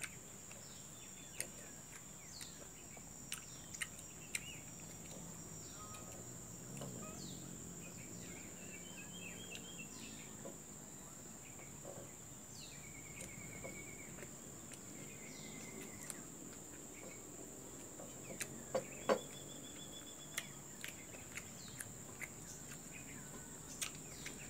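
Insects droning steadily at a high pitch, with scattered short bird chirps and trills over them and a few small clicks, the two sharpest about three-quarters of the way through.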